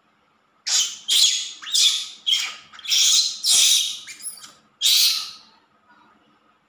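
Baby monkey giving a run of about eight short, harsh, high-pitched squeals over about five seconds while being bottle-fed milk.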